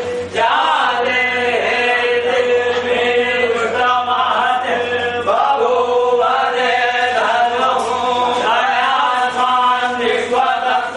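Voices chanting a Hindu devotional mantra in long held notes that step up and down, phrase after phrase with short breaks between.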